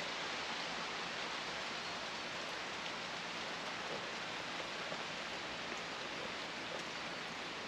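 Light drizzle falling steadily, an even soft hiss of rain.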